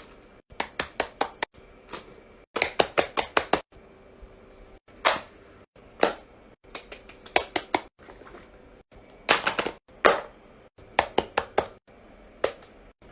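Fidget toys being clicked and snapped in quick runs of sharp clicks, a few at a time, with several single louder snaps between the runs.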